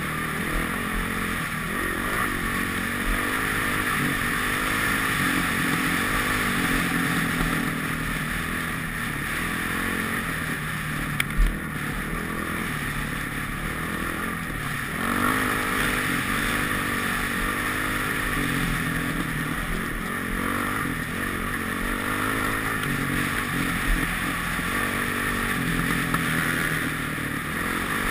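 Dirt bike engine running under way at race pace, its revs rising and falling with the throttle, under a steady rush of wind on the helmet camera's microphone. A couple of brief knocks stand out about a third and again about five-sixths of the way through.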